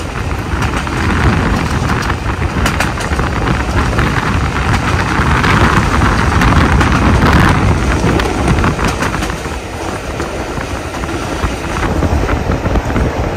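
Steam-hauled passenger train running along the track, heard from an open carriage window: a steady rumble of the train in motion with wind rushing over the microphone.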